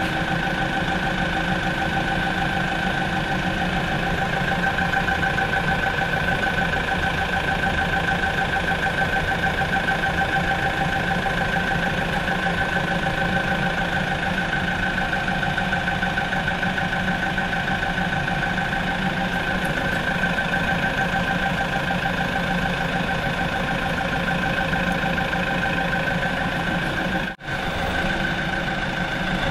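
Steady drone of an engine running at an even idle, with a brief break about 27 seconds in.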